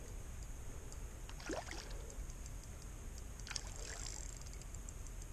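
Faint water sloshing and splashing from a hooked striped bass thrashing at the surface near the bank as it is reeled in.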